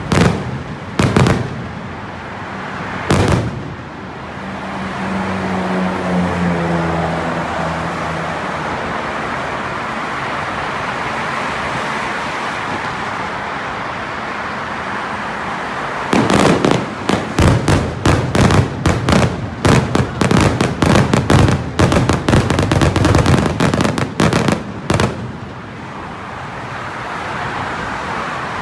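Aerial fireworks display: a few loud shell bursts, then a long stretch of steady rushing noise, then a rapid string of dozens of sharp bangs from about sixteen seconds in, lasting about nine seconds.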